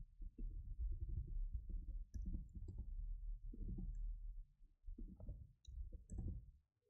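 Computer keyboard and mouse clicks as text is copied, pasted and clicked between windows, with low dull knocks picked up through the desk.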